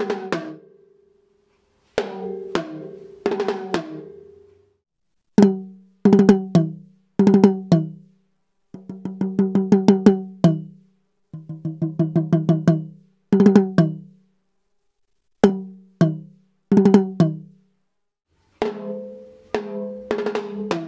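Two 6-inch octobans with thick seamless clear acrylic shells and Evans Level 360 clear G1 heads, played in short phrases of single hits and quick runs with brief pauses between. One drum sounds clearly lower than the other, and each hit rings out briefly.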